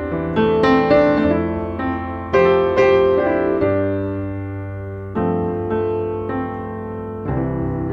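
Background piano music: slow chords over held bass notes, each new chord struck and left to fade.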